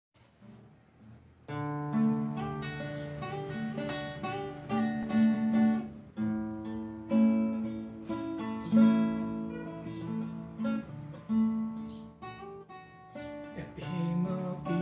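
Nylon-string classical guitar playing an instrumental introduction of strummed chords, starting about a second and a half in.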